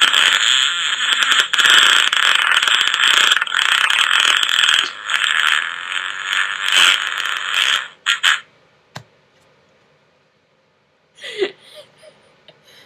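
A long fart sound effect played from a fart soundboard: a loud, crackly, rasping blast lasting about eight seconds that ends in two short spurts.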